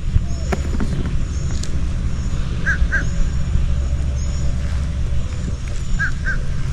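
A bird calling a short two-note call, repeated about every three seconds, over a steady low rumble.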